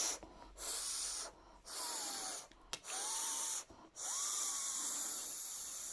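A person imitating the wind by blowing through pursed lips: a series of breathy whooshing gusts, each under a second with short gaps between, then a longer gust about four seconds in. Some gusts carry a faint whistle that slides in pitch.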